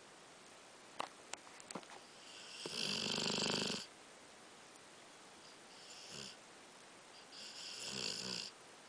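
Dog snoring in its sleep: a long snore about two and a half seconds in, a short fainter one around six seconds, and another near the end. A few light clicks come just before the first snore.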